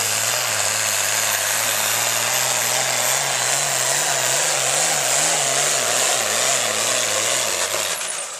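Pro Farm class pulling tractor's diesel engine running hard at full throttle while dragging the sled, loud and steady, its pitch wavering up and down through the middle as the tractor hops. The sound drops off near the end.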